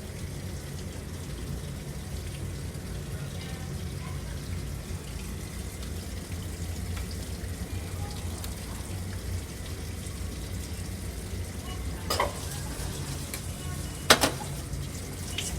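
Coin-operated washing machine, an AQUA MCW-C70A, with water running and a steady low hum. Two sharp knocks come near the end, the second the loudest.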